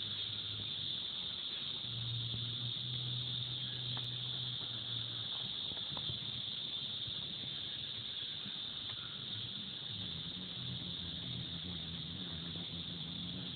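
A steady, high-pitched insect trill, with a faint low hum that comes and goes underneath.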